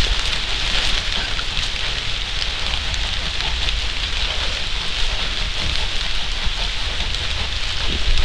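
Steady rain falling on leaf litter, an even hiss with a low rumble underneath.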